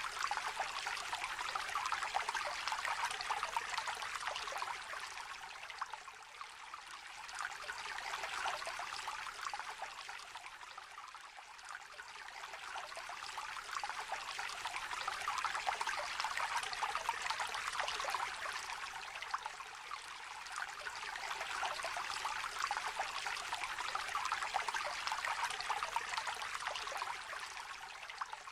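Shallow river trickling and babbling over stones, a steady splashy flow that swells and eases every several seconds.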